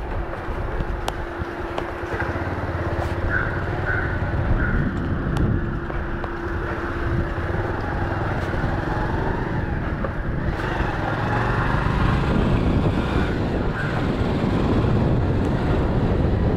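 Wind rumbling on a handheld phone's microphone, a dense low rumble with a faint steady hum through the first half and a few light handling clicks.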